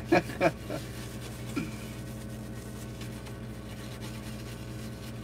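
Faint scrubbing of a toothbrush on a laptop circuit board wet with isopropyl alcohol, over a steady low hum; a few spoken words in the first moment.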